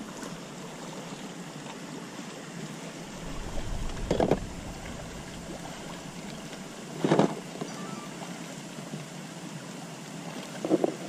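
Steady rushing outdoor noise, with three short knocks from fishing tackle being handled. The loudest knock comes about seven seconds in.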